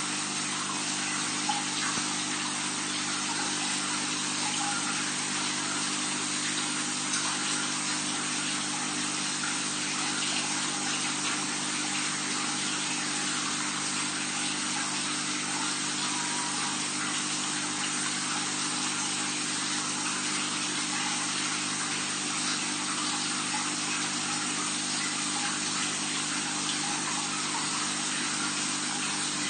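Steady rushing of water circulating through a fish tank's pipework, with a steady low hum underneath.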